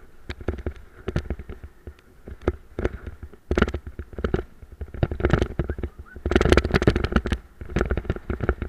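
Dog cart rattling and jolting over a rutted dirt track, an irregular clatter of knocks over a low rumble from the wheels, busiest about six seconds in.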